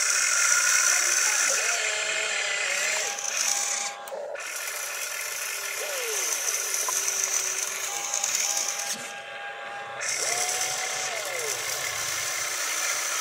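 Small electric motors of a toy RC excavator whining as the boom, arm and bucket move, the pitch rising and falling as the controls are worked. The whine drops out briefly about four seconds in and again about nine seconds in.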